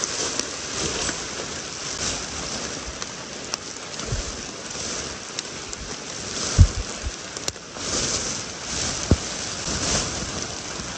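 Steady rain falling on the forest undergrowth, with a few low thumps and a click from handling, the loudest thump a little after the middle.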